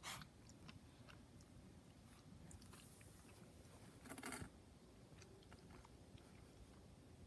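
A rabbit sneezing softly: one short sharp sneeze right at the start and a slightly longer one about four seconds in, with faint small clicks in between.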